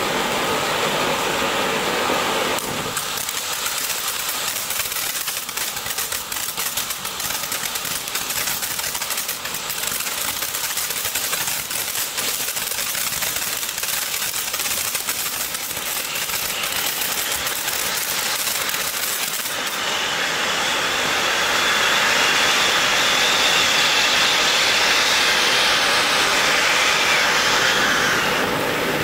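Ground fountain firework spraying sparks with a steady rushing hiss. A few seconds in, a dense rapid crackle of small pops joins the hiss. About twenty seconds in, the crackle stops and a louder, smoother hiss takes over.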